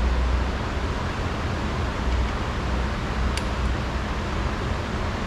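Steady noisy background rumble with a low hum, and a single sharp click about three and a half seconds in as a plastic door trim piece is pried loose with a flathead screwdriver.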